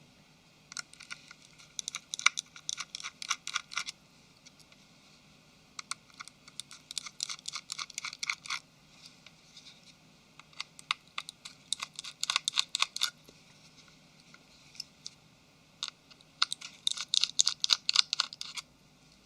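Small screws being undone with a precision screwdriver during a smartphone teardown: four bursts of rapid, fine clicking, each lasting a few seconds.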